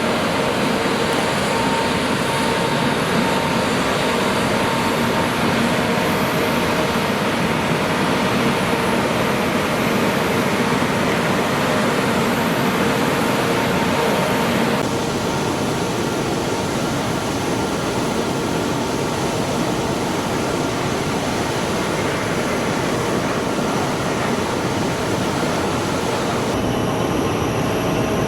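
Jet airliner engines running: a steady rushing noise with a faint steady whine. The sound changes abruptly twice, about halfway through and near the end.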